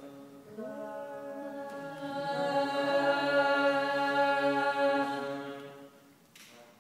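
Unaccompanied Sacred Harp voices holding a sustained chord in several parts. The parts slide onto their notes one after another, swell, and die away about six seconds in.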